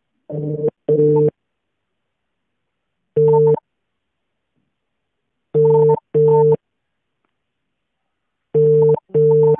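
Telephone ringback tone of an outgoing call: a double ring of steady tone bursts repeating about every three seconds while the call waits to be answered.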